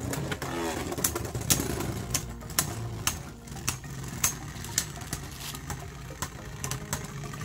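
Two Forneus Beyblade Burst tops spinning in a plastic stadium: a steady whir with sharp clacks about twice a second as the tops strike each other.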